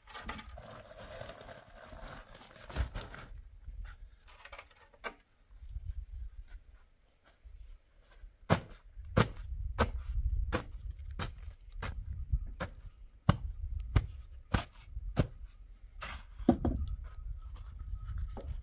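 A shovel scraping into a pile of sand for about three seconds. After a pause comes a steady run of sharp crunching steps on gravelly ground, about one and a half a second, over a low rumble.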